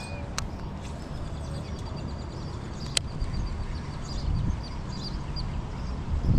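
Birds calling in a quick run of high chirps, over a low rumble of wind on the microphone, with two sharp clicks, one near the start and one about three seconds in.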